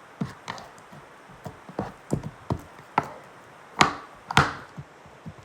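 Slime being worked by hand, giving off sharp, irregular clicks and pops, about eight in all, the two loudest about four seconds in.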